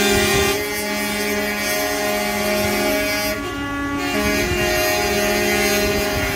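Several semi-truck air horns sounding at once in overlapping, held tones of different pitches, the mix of tones changing about three seconds in, over the low running of diesel truck engines.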